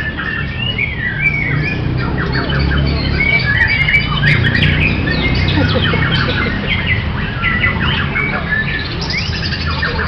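White-rumped shamas singing: a dense run of quick, varied whistles, slurs and chattering phrases that overlap one another, with no pause. A steady low background hum runs underneath.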